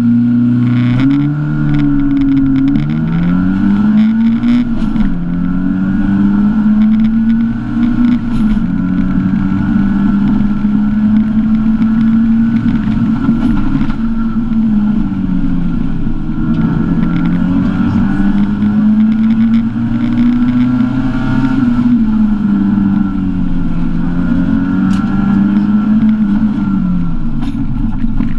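Lada Samara rally car's engine heard from inside the cabin, pulling away from the stage start and driven hard, its note rising and dropping repeatedly as it climbs through the revs and falls back between gears and corners.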